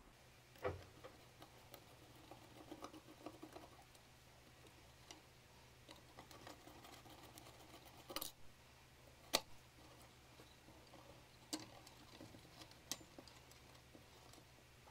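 Light clicks and small knocks of the wires and their ceramic insulating beads being handled inside the metal housing of an old electric hotplate, with a handful of sharper clicks scattered through.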